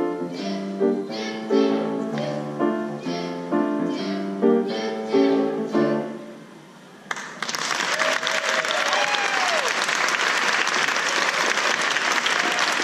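The last bars of a children's choir song with piano accompaniment, the piano notes struck at an even pace and dying away; about seven seconds in, audience applause starts suddenly and carries on steadily.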